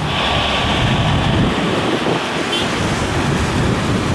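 Airbus A330-300 jet engines running at taxi power, a steady rushing noise, with wind buffeting the microphone. A higher hiss sits on top for the first couple of seconds, then drops away.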